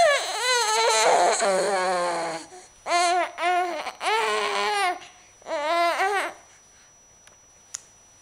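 An infant crying: one long wail with a wavering pitch lasting about two and a half seconds, then four shorter cries, falling quiet about six seconds in.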